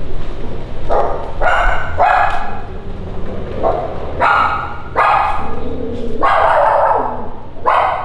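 A dog barking repeatedly, about eight loud barks, one near the end drawn out for about a second.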